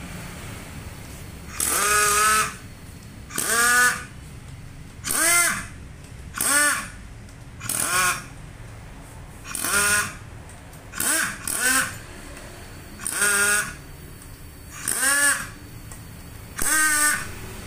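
Air impact wrench fired in short bursts, about eleven in a row every one and a half to two seconds, each a hiss with a whine that rises and falls, as it loosens the cylinder head bolts.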